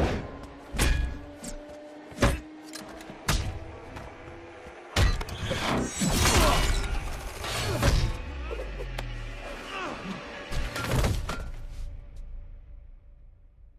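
Movie fight sound mix: orchestral score under a series of sharp impacts, hits and metal strikes from a shield, about one a second at first, then a dense stretch of crashes in the middle and a couple more hits before it fades away near the end.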